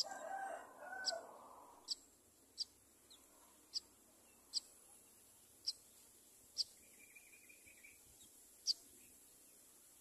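A rooster crows once in the background at the start, lasting about a second and a half, over a run of short, high chirps that repeat about once a second. A brief buzzy trill comes about seven seconds in.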